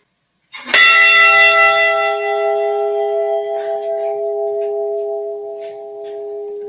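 Ship's bell model of the Edmund Fitzgerald's bell struck once, ringing with a long, slowly fading tone. It is tolled once for one of the lost crew members in a memorial roll call.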